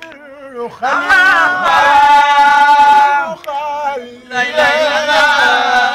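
A man chanting a devotional song solo, his voice wavering and ornamented on long held notes. He sings two phrases, with a short break about four seconds in.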